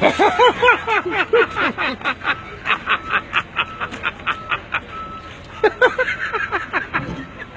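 A man's voice making high-pitched wordless sounds: rising-and-falling cries at first, then a fast string of short bursts about four a second, then a few more cries near the end.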